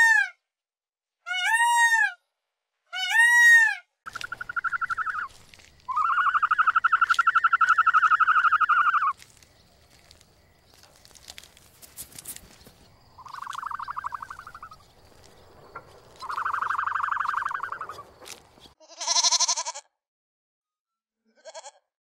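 A peacock gives loud, arched calls two or three times in the first few seconds; then a goat bleats repeatedly, in about five long, quavering bleats with pauses between them.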